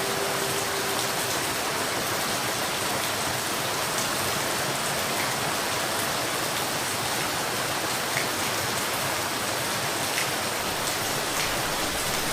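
Steady rain falling, a dense even hiss with occasional single drops ticking out of it. A faint steady hum under it dies away about a second in.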